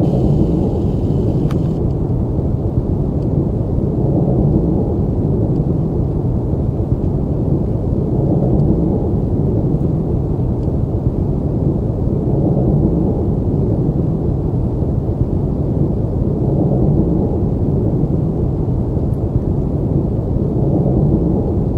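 A looped recording of a 32 Hz low-frequency signal, pitch-shifted up two octaves so that it can be heard: a loud, dense rumbling drone whose pattern repeats about every four seconds.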